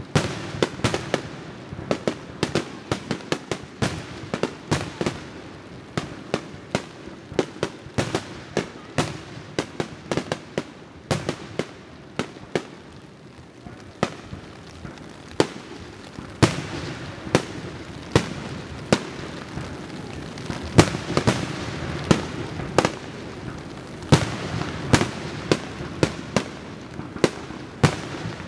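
Aerial fireworks display: shells bursting in quick succession, a sharp bang every second or so. There is a short lull in the middle, then the bangs come thicker and louder over the last dozen seconds.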